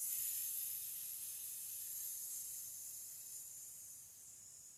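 A woman hissing like a snake: one long, unbroken "ssss" that starts suddenly and slowly fades away over about five seconds.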